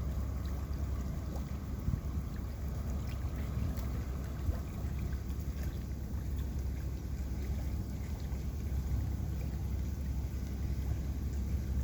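Steady low rumble of a passing boat's engine on the river.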